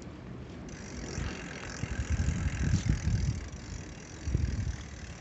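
Bicycle rolling over brick pavers, with a steady rattling hiss from the bike and tyres. Irregular low rumbles of wind on the microphone come through the middle and again near the end.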